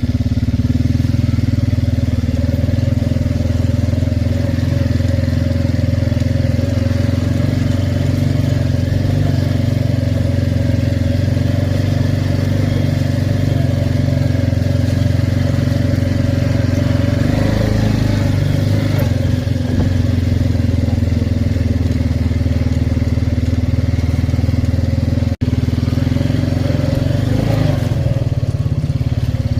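ATV engine running while riding, a steady loud drone whose note shifts now and then with throttle. There is one momentary break in the sound about three-quarters of the way through.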